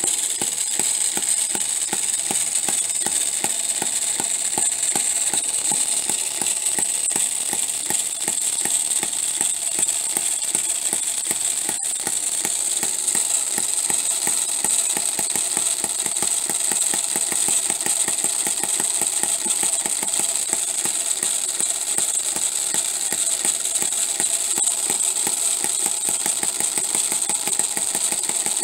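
Miniature four-stroke hit-and-miss engine running at about 1500 rpm, a fast steady mechanical clatter with a high whine; its poor-quality gears make much of the noise.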